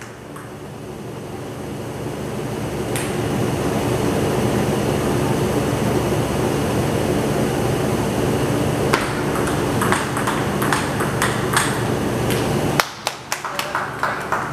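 Table tennis rally: the ping-pong ball clicks off paddles and table in quick succession, with a few more taps after the rally. Under it, a steady hum swells over the first few seconds and cuts off suddenly shortly before the end.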